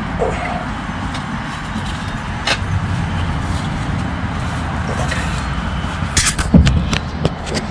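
Exhaust pipe and muffler parts being pushed and knocked into place while a rubber hanger is fitted, giving scattered sharp metal clicks and knocks, with a cluster of louder ones about six seconds in. A steady low rumble runs underneath.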